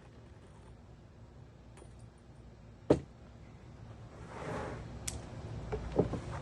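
Faint workshop handling noises as wooden bench parts and tools are moved: a single sharp knock about three seconds in, then a brief scrape and a few light clicks.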